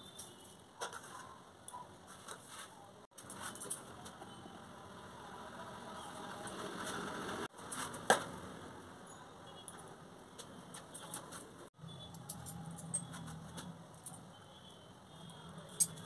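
Small clinks and taps of a spoon or spice container against a stainless steel mixing bowl as powdered spices are added, with one sharp clink about eight seconds in. The sound drops out briefly three times at edit cuts.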